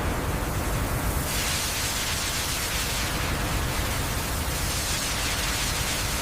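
Steady, dense rushing hiss with no clear rhythm or tone, growing brighter about a second in.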